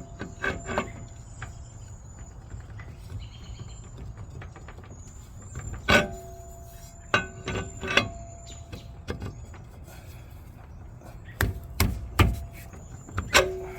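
Half a dozen sharp metallic clinks and knocks, some ringing briefly, as metal parts of a mud motor's prop shaft and propeller are handled. Insects chirp steadily under them.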